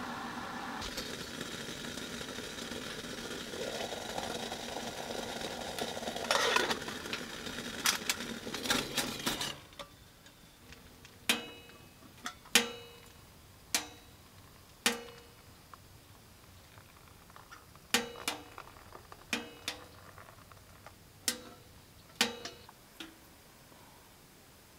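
Hot water poured from a kettle into a metal camp mug over a steady hiss, its pitch rising as the mug fills. Then a spoon clinks against the inside of the metal mug about a dozen times, irregularly and roughly once a second, each clink ringing briefly: hot chocolate being stirred.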